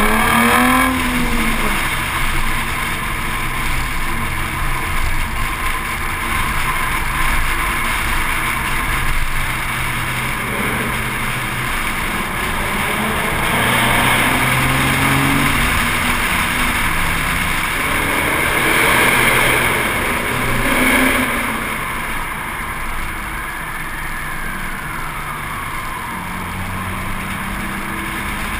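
Car engine running and accelerating, rising in pitch at the start and stepping up and down through the gears, over steady tyre and wind noise inside a road tunnel.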